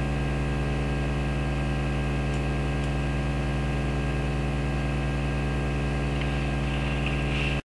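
A steady low hum with many overtones, unchanging throughout, cutting off abruptly near the end.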